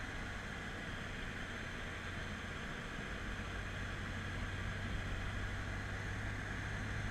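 Steady cabin noise in a BMW F10 M5 on track: a low, even engine drone under tyre and wind hiss, with no change in pitch.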